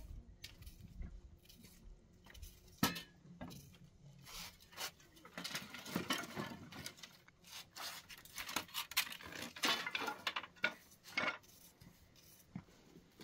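A bundle of dry sticks being set down and shifted on the ground: scattered light knocks and crackling rustles, busiest about six seconds in and again around ten seconds in.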